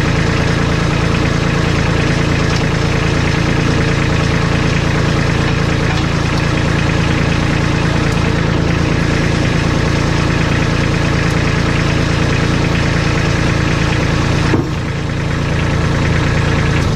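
Kubota compact tractor's diesel engine idling steadily, with a brief dip and a change in its note a couple of seconds before the end.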